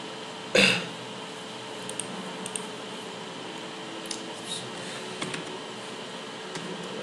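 Computer keyboard keystrokes, a few scattered clicks a second or so apart, over a faint steady hum. A brief louder burst of noise comes about half a second in.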